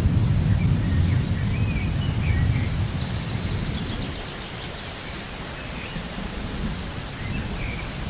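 Steady rain falling on tropical foliage, with a low rumble of distant thunder that fades away over the first few seconds. A few faint bird chirps come through the rain about two seconds in and again near the end.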